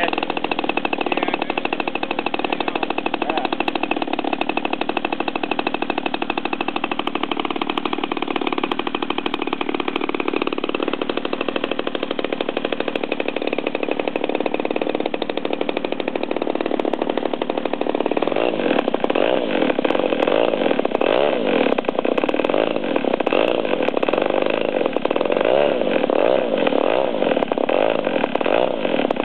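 The MT50 engine of a radio-controlled model plane running steadily with its propeller spinning. About two thirds of the way through it grows louder and its pitch starts to waver up and down as the plane taxis away.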